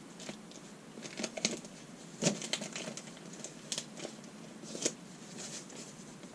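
Handling noises: an irregular scatter of small clicks, taps and paper crinkles, with the sharpest knocks about two seconds in and again near five seconds.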